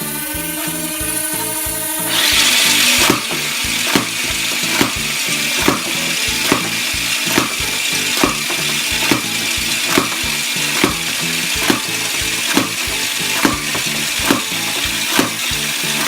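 Electronic background music: held synth chords with a rising sweep, a swell of hiss about two seconds in, then a steady beat of a little over one hit a second.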